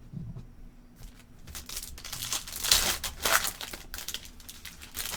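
A trading-card pack wrapper being torn open and crinkled by hand. The crackling starts about a second and a half in and is loudest around the middle.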